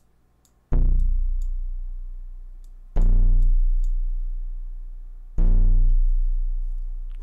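Software-synthesized plucked-string notes from a simulated string given a square-shaped starting shape: three very low notes, each starting suddenly and fading slowly, with the bright upper overtones dying away first so each note mellows as it decays. Faint clicks sound between them.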